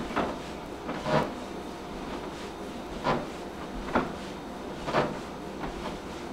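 Bare feet thumping on a carpeted floor during high-knee exercise in place, about five dull landings roughly a second apart.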